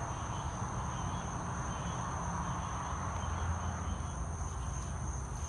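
Night crickets chirring steadily at a high pitch, over a low, steady rumble.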